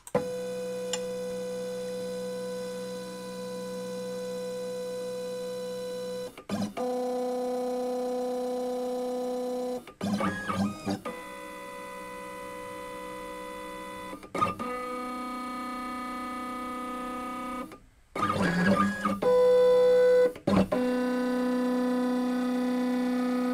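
LongMill CNC router's stepper motors whining through an automatic touch-plate probing routine to find X, Y and Z zero. There are about six moves, each a steady pitched hum lasting a few seconds, and the pitch changes from one move to the next as the machine switches axis and direction, with short breaks in between.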